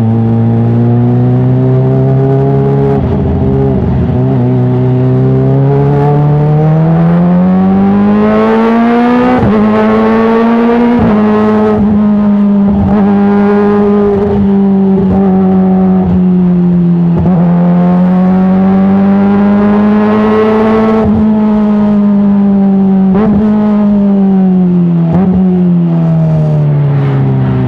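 Kawasaki ZX-25R inline-four 250 cc engine running through an Arrow titanium full-system exhaust. The engine note climbs a few seconds in, holds at a higher steady pitch with slight swells, then drops back near the end. Short faint ticks recur about once a second while it is at the higher pitch.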